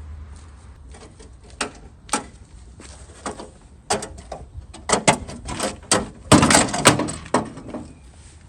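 Irregular clicks and clanks of small metal hardware being handled, sparse at first, then busier and louder about five seconds in.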